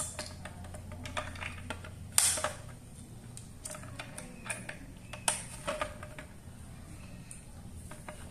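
Hard plastic toy parts clicking and knocking as the motor unit of a Playmobil police speedboat is handled and fitted, with a few louder knocks, the loudest about two seconds in.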